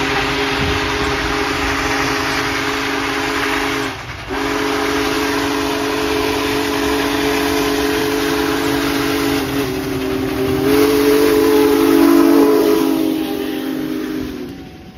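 Union Pacific Big Boy 4014 steam locomotive's whistle blowing a long blast with a brief break about four seconds in, dropping slightly in pitch about ten seconds in as the engine passes. A loud hiss of venting steam and the running train rise under it as the locomotive goes by, and the whistle cuts off near the end.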